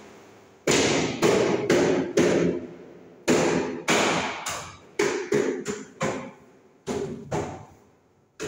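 Hammer blows on a patio door frame being fitted: over a dozen sharp strikes at an uneven pace, each ringing out and echoing in a bare tiled room.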